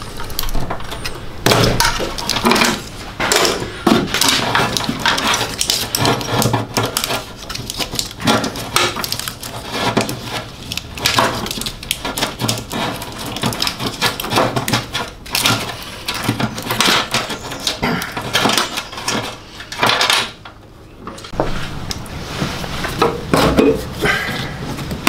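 Busy, irregular clattering and knocking of metal fittings and cables being worked loose and pulled from a car's bulkhead, with a short lull about 20 seconds in.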